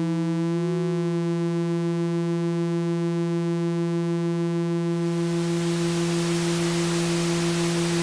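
Modular synthesizer test signals through a homemade Eurorack mixer: two steady oscillator tones, the higher one bending down and back up in pitch in the first second. About five seconds in, a hiss of white noise fades in and grows, as a mixer knob is turned up.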